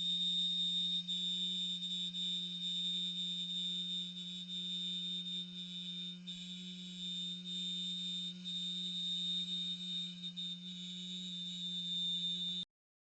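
A man humming a low note and whistling a high steady note at the same time, both held level in one long unbroken tone that cuts off suddenly near the end.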